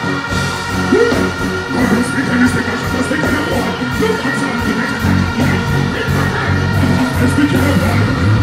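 Loud music from a stage sound system, with a performer's voice over the backing track.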